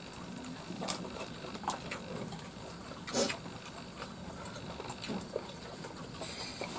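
People eating by hand: scattered small chewing and lip-smacking sounds and light clicks of food and plates, with one louder smack about three seconds in.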